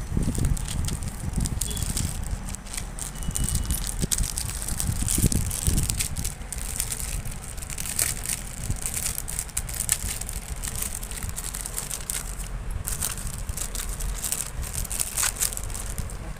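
Packaging being handled: a plastic jewellery packet crinkling and rustling in irregular crackles, over a low rumble of handling noise.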